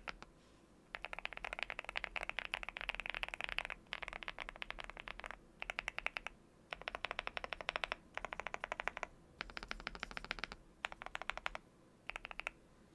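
Typing on a NuPhy Halo75 V2 mechanical keyboard with lubed Gateron Quinn tactile switches and cherry-profile keycaps: fast runs of keystrokes in bursts of up to about three seconds, broken by short pauses.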